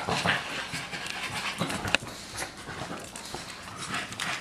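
An English bulldog puppy and a small black-and-white dog playing, with panting breath and scrabbling on a tile floor. There is one sharp click about two seconds in.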